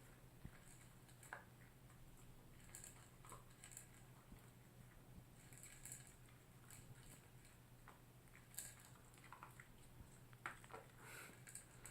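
A dog eating its breakfast: faint, scattered crunches and clicks of chewing, irregular throughout.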